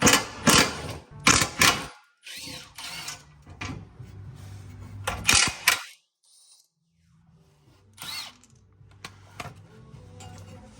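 A power tool run in several short bursts, with a longer pause partway through.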